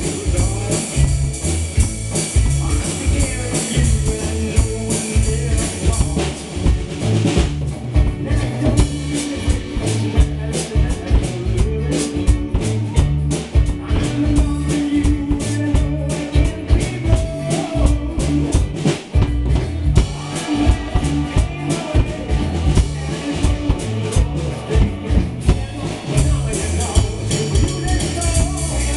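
Drum kit played live along to a recorded Indo-rock song with guitar: a steady rock beat of bass drum, snare and cymbals over the band's recording.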